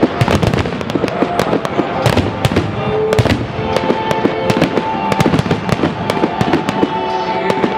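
Aerial fireworks going off in rapid succession, a dense run of bangs and crackles many times a second. Music plays under the bangs.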